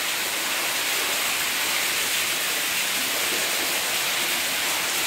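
Steady rushing hiss of water pouring down into a pool.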